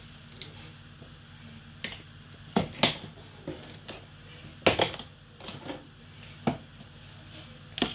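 Irregular sharp clicks and knocks of kitchen utensils being handled, about ten in all, the loudest near the middle, over a low steady hum.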